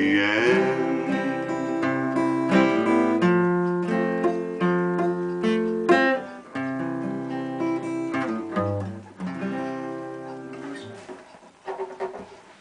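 Acoustic guitar playing the closing bars of a country song, picked chords ringing one after another, then thinning out and fading near the end.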